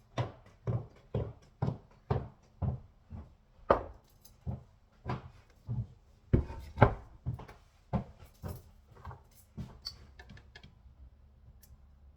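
Regular knocking or thudding, about two knocks a second, that grows sparser and stops about ten seconds in, leaving a faint low hum.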